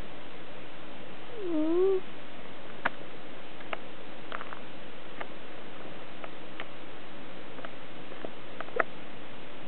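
A cat snoring: one short pitched note that dips and then rises in pitch about a second and a half in. Faint scattered clicks follow over a steady hiss.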